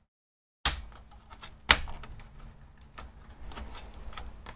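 After a brief dead silence, a series of clicks and knocks as hands handle a cable and components inside an opened HP ProDesk 400 G6 small-form-factor desktop case. One sharp loud click comes about a second and a half in, followed by smaller taps.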